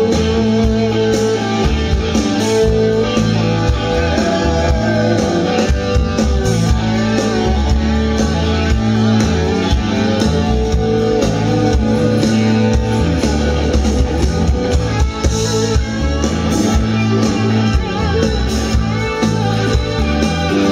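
Live rock band playing an instrumental passage, loud, with guitar over bass and drums. Recorded from within the audience.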